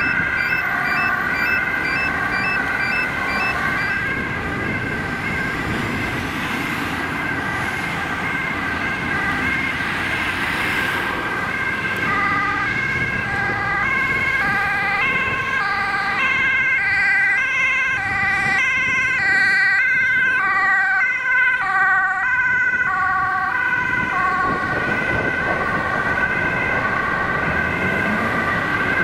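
Dutch ambulance two-tone siren going high-low, loudest in the middle as an ambulance passes, over road traffic.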